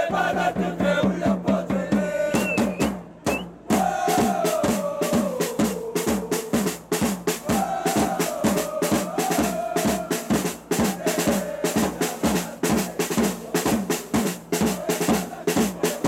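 A supporters' drum section playing a fast, steady beat on bass drums and snare drums, with a short break a little over three seconds in. A crowd sings a football cheer song over the drums at times.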